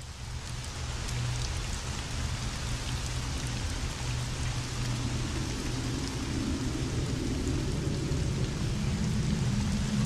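Steady heavy rain falling, with a low rumble of thunder underneath that grows stronger near the end; it fades in at the start.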